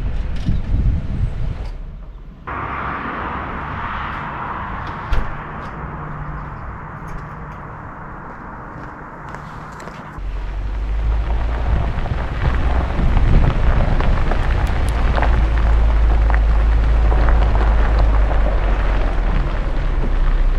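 Jeep driving on the road: steady tyre and engine noise with wind buffeting the microphone. The sound shifts abruptly twice, and a heavy low rumble takes over about ten seconds in. A single sharp knock comes about five seconds in.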